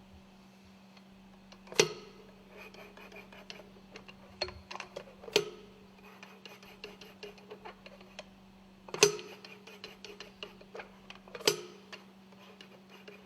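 Scattered clicks and light knocks of metal tools and parts being handled, with four sharper metallic knocks spread through, over a steady low hum.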